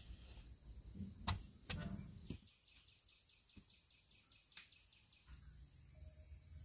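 Faint outdoor ambience: a few soft knocks in the first two seconds, then a steady, high-pitched drone with a fast pulsing.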